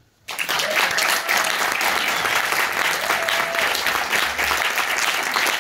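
Audience applauding at the close of a speech, breaking out suddenly just after the start and keeping up steadily.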